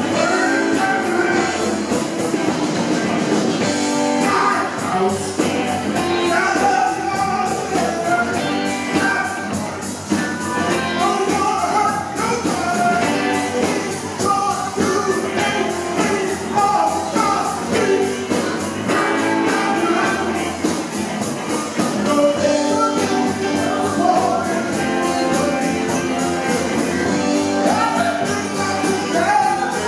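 Live rock band playing: electric guitars, bass and drums with keyboard and hand percussion.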